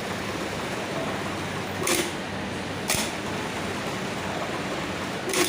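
Steady mechanical hum with three short sharp clicks, about two, three and five and a half seconds in.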